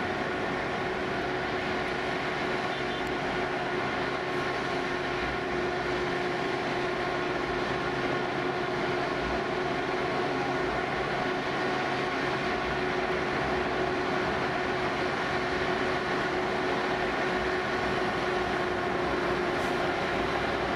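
Steady mechanical drone of engines running, a constant hum over an even rushing noise that does not change.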